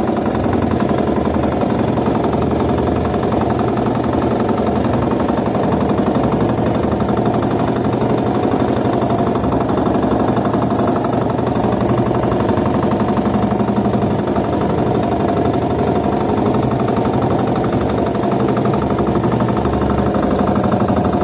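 A small fishing boat's engine running steadily, with an even, rapid beat, while the boat trolls a jig.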